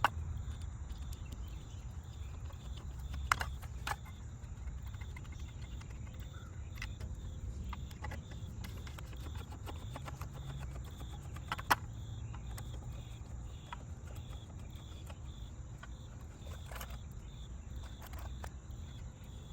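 Crickets chirping faintly over a low steady rumble, with a few scattered light clicks and taps, the sharpest about twelve seconds in.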